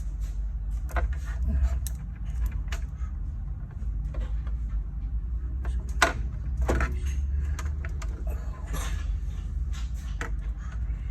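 Irregular clicks and knocks, as of small objects being handled, over a steady low rumble, with one sharper knock about six seconds in.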